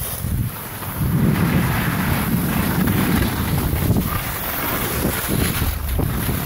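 Wind buffeting the microphone of a camera carried by a skier going downhill, a heavy rumble that gets louder about a second in, with the hiss of skis sliding over packed snow.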